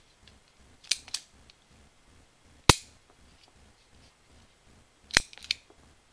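Sharp plastic clicks and snaps from a miniature Takara Tomy A.R.T.S gashapon model pistol as its moving parts are worked by hand: two clicks about a second in, a single louder snap near three seconds, and another quick pair a little after five seconds.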